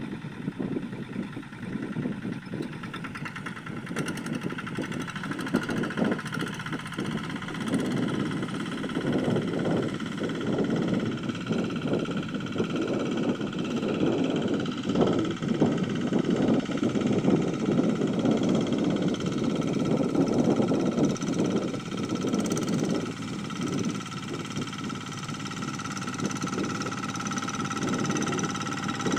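Engine of a two-wheel hand tractor running steadily under load while it ploughs, with a constant drone and an even engine note throughout.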